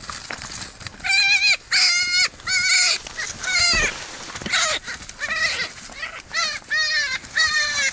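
An animal crying out again and again in dense scrub: about ten short, high, wavering calls, starting about a second in and following one another quickly.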